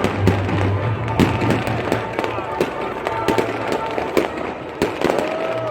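New Year's fireworks going off in quick irregular succession: a dense crackle of bangs and pops from firecrackers and rockets. Near the end a rocket's whistle rises in pitch.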